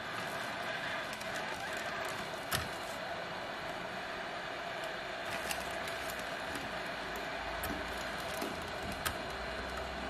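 Hot air rework station blowing a steady hiss of hot air onto a laptop motherboard's USB port, melting its solder to desolder the port. A few faint clicks sound over it.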